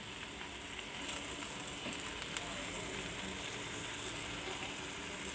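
Spice-marinated chicken legs sizzling steadily in hot oil in a nonstick frying pan, with a few faint clicks of metal tongs as the pieces are turned over.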